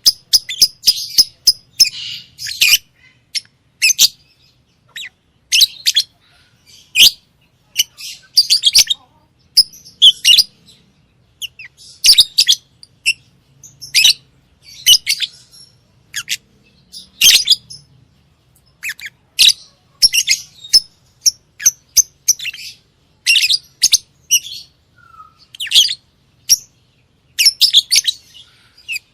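Lovebirds chirping: short, shrill, high calls coming in quick irregular runs with short gaps between them.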